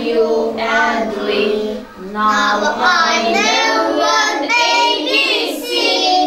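A group of young children singing together, with held notes and gliding pitch; the singing dips briefly about two seconds in.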